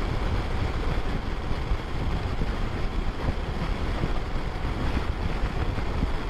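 Steady wind rush on the microphone from a BMW R1150RT touring motorcycle riding at highway speed, about 100–110 km/h, heavy in the low end and drowning out any distinct engine note.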